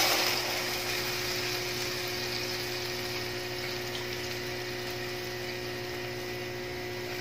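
Water heating in a kadhai on a gas burner, just poured onto hot oil and fried tempering: the sizzle dies down in the first second into a steady hiss as the water works toward the boil.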